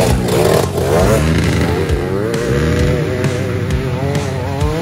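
Off-road trail motorcycle revving as it climbs a dirt trail, its engine pitch rising and falling with the throttle.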